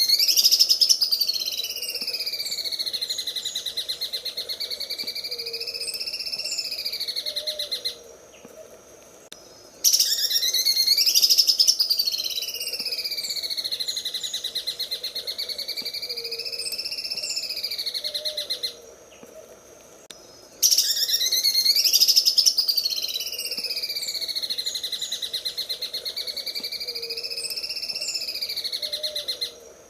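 Greater green leafbird (cucak ijo) singing its 'sewing machine' song: a very fast, rattling trill whose pitch wavers slowly up and down. The same phrase of about nine seconds repeats three times with short pauses between.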